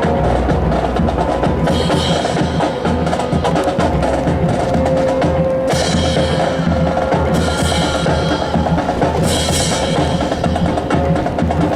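Drum-heavy music with a steady beat, with cymbal-like splashes recurring about every two seconds.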